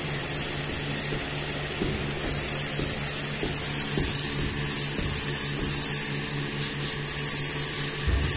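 Electric fan running with a steady motor hum and a rush of air, blowing dust and light chaff out of threshed flaxseed. A few faint knocks, and a soft thump near the end.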